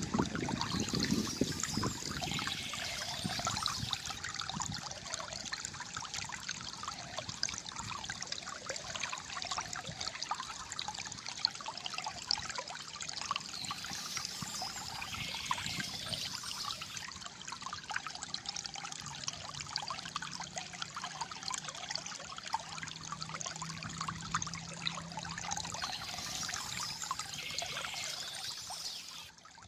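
Shallow water flowing and gurgling steadily over stones, a continuous trickling stream.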